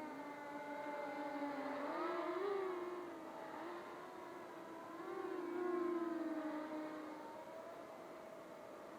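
Floureon 250 racing quadcopter in flight, its 2204 2300kv brushless motors and 5-inch props whining. The pitch wavers up and down with throttle changes, getting louder about two seconds in and again around six seconds, then easing off.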